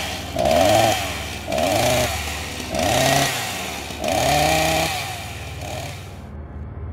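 Chainsaw revved in short bursts, about five times at roughly one a second, each rev rising and then falling in pitch. The revs stop about six seconds in.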